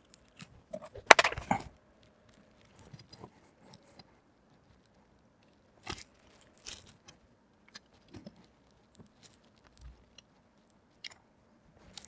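Insulated hookup wire being pulled off plastic spools and handled: scattered crackly rustles and light clicks, the loudest cluster about a second in.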